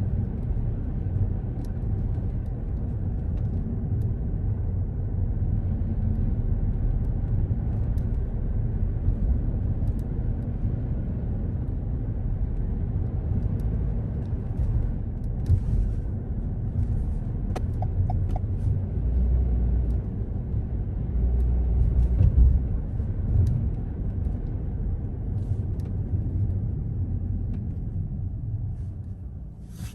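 A car driving on city streets: steady low rumble of engine and road noise, easing off slightly near the end.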